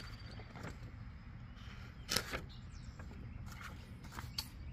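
Sheets of paper being handled and turned, with two short rustles, the stronger a little over two seconds in and a smaller one near the end, over a low steady background rumble.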